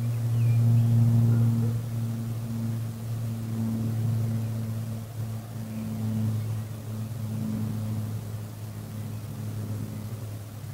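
A distant engine's steady low drone that peaks about a second in and slowly fades over the rest. A single faint bird chirp comes just after the start.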